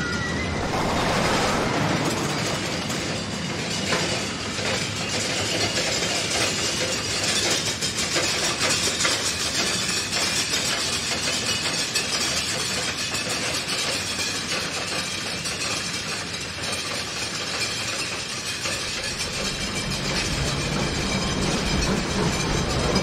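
Ride cars rolling along a track with a steady clattering rumble. A deeper rumble builds near the end.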